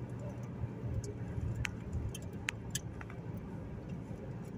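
Steady low road and engine rumble heard inside a moving car's cabin, with a few faint scattered clicks from something small rattling in the car.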